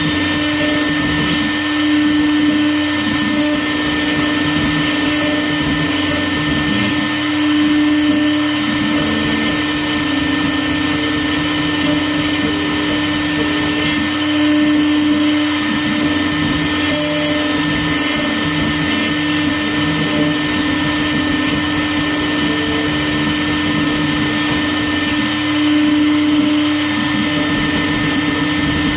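ShopBot CNC router spindle running steadily as its bit engraves lettering into a wooden board: a constant pitched whine over the cutting noise, with slight swells in level.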